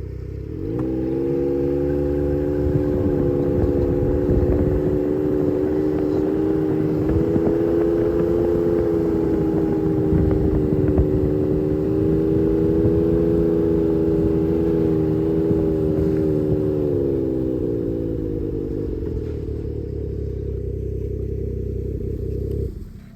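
An engine rises from idle to high speed about a second in and runs steadily there. It eases off a little a few seconds before the end, then cuts off abruptly.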